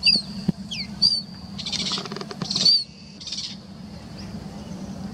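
Birds calling: a string of short, high chirps and down-slurred whistled notes, with a few harsh, scratchy bursts in the middle, over a steady low hum.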